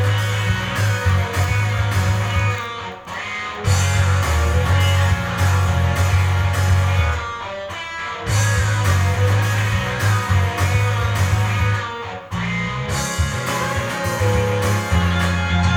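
Instrumental break of a J-rock backing track: electric guitars over bass and drums, with no vocals, briefly dropping back about three times.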